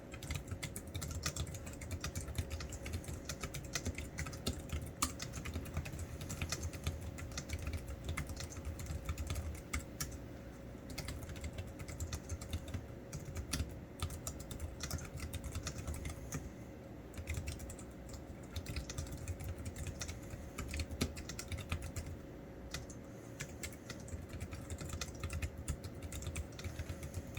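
Continuous fast typing on a Logitech K380 keyboard: a dense, uneven stream of quick key clicks, with a faint steady hum underneath.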